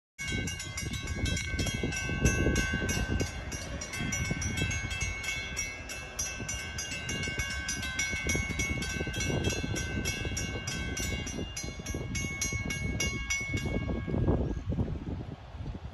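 Railroad grade-crossing bell ringing quickly and evenly, about three strokes a second, and stopping about fourteen seconds in. A low rumble runs underneath.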